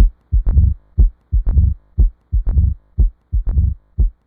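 Heart sounds of mitral stenosis, the 'lub-dee-dur' of a mid-diastolic murmur, beating about once a second. Each beat brings sharp short sounds followed by a longer low rumble.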